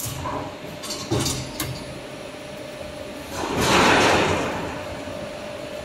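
Automatic strapping machine on an AAC block packing line at work, over a steady machine hum. A few sharp clicks and knocks come in the first two seconds, then a loud whooshing rush about three and a half seconds in that fades away over a second.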